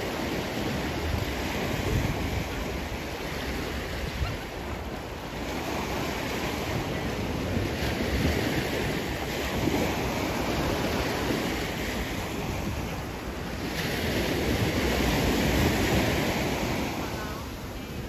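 Sea waves washing onto the beach, the surf swelling and fading every few seconds, with wind rumbling on the microphone.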